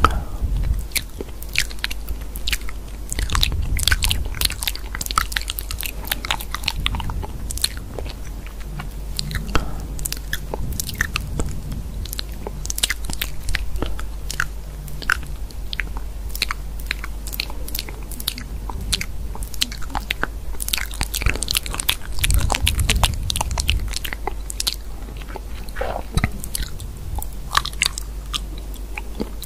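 A steady stream of quick, irregular, crisp clicks and crunches, dense and unbroken, over a faint low hum.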